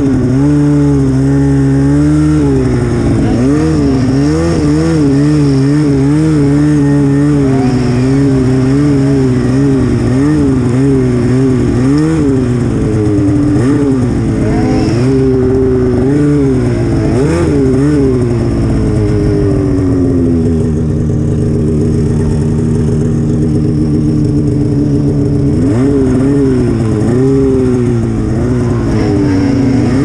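Turbocharged two-stroke snowmobile engine, close up, revving up and down in quick throttle blips as the sled works through deep powder, then holding a steady note for several seconds past the middle before the revving resumes near the end.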